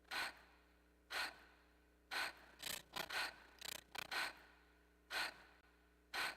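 A person gasping for air: short, sharp breaths about a second apart, bunching into several quick gasps in a row in the middle before slowing again.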